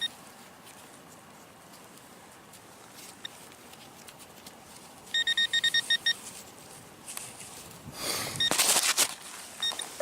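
Metal detector beeping in short high tones: a single beep, then a quick run of about eight beeps, signalling metal in the ground. Near the end there is a loud burst of scraping noise, with a couple more beeps.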